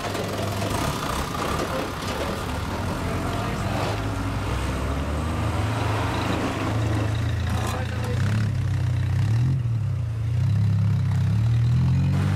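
Cars and a flatbed tow truck driving slowly past one after another, engines running with a steady low drone. Near the end an engine revs up, rising in pitch.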